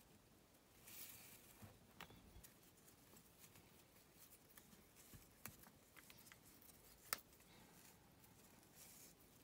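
Near silence with faint rustles and small ticks of knotting cord being handled and pulled through loops by fingers; the sharpest tick comes about seven seconds in.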